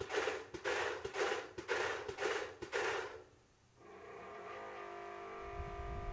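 A run of noisy bursts, about two a second, stops about three seconds in. About four seconds in, the Yamaha music siren's motor starts up and a soft harmonica-like chord of several steady tones swells in and holds.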